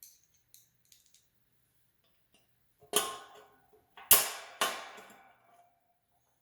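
A few light clicks, then three sharp metal clanks about a second and half a second apart, the last one ringing briefly as metal parts of an exercise bike are handled.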